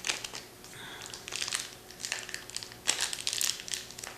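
Cellophane wrapper on a pack of sports cards being torn open and crinkled by hand, in several irregular crackling bursts.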